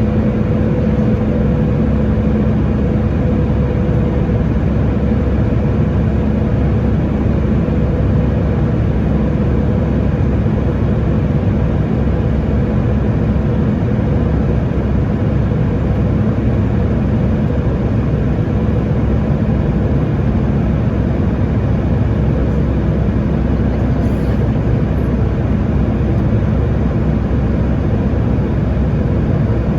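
Cabin noise inside a Boeing 737-900ER in flight: the steady, loud rush of its CFM56-7B turbofans and airflow. A faint humming tone fades away over the first ten seconds or so.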